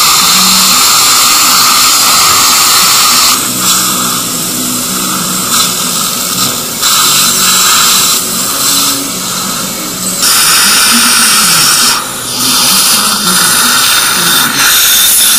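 Dental surgical suction running in the mouth: a loud, steady hiss that dips briefly several times as the tip is moved.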